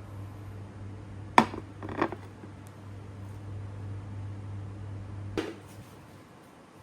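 Kitchen cookware and utensils knocking together: three sharp clinks, the first about a second and a half in and the loudest, over a steady low hum.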